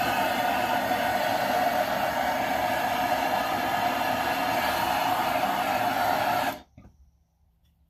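Handheld gas torch flame burning steadily with a broad hiss as wood is scorched, then shut off suddenly about six and a half seconds in.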